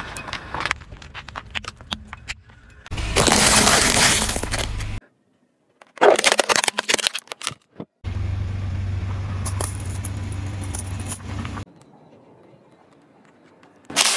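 A car tyre rolling slowly over small objects and crushing them in a run of short takes that start and stop abruptly: crackling and crunching, with one loud burst of crunching noise a few seconds in, and the car's engine running steadily for a few seconds in the middle.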